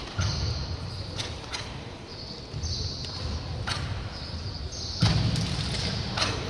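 Crisp snaps of a karate gi and bare-foot stamps on a wooden sports-hall floor as a karateka performs a kata, about six or seven sharp strikes spread out with short swishes between them.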